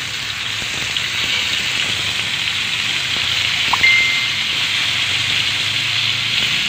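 Beef slices marinated in calamansi and soy sauce sizzling steadily as they fry in hot oil in a frying pan. There is one brief ping about four seconds in.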